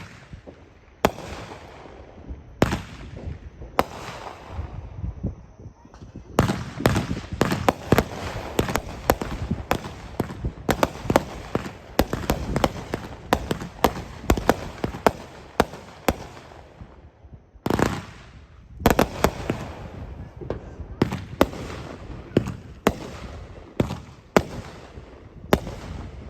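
Consumer aerial firework cakes going off: single sharp bangs of shells bursting, then a dense run of rapid crackling reports, a short lull, and a fresh series of evenly spaced bangs near the end.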